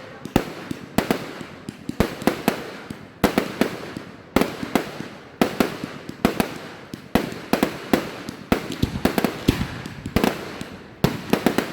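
Fireworks going off: an irregular run of sharp bangs, at times several a second, each trailing off in an echo.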